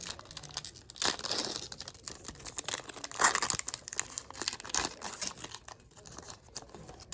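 Plastic wrapper of a Panini Mosaic baseball card pack being torn open and crinkled, in irregular crackles, loudest about a second in and again around three seconds in.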